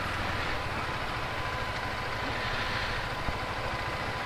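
Motorcycle engines idling at a standstill, a steady low rumble, with a faint click about three seconds in.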